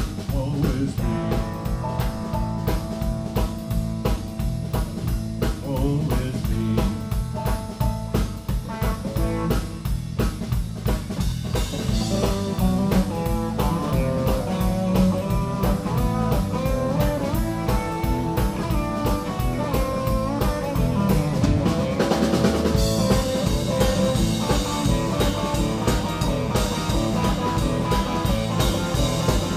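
Live blues band playing an instrumental passage: sunburst Telecaster-style electric guitar over bass guitar and drum kit, with a steady beat.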